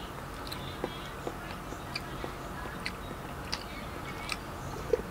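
A person eating coffee jelly close to the microphone: quiet chewing and mouth smacks, heard as small soft clicks at irregular intervals over a low steady hum.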